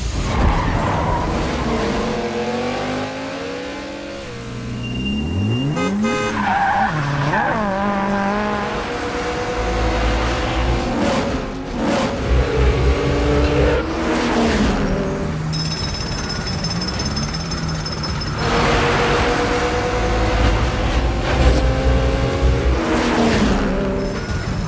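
Car engines revving, their pitch climbing and dropping repeatedly as they accelerate and slow, with a steep rising rev about five seconds in.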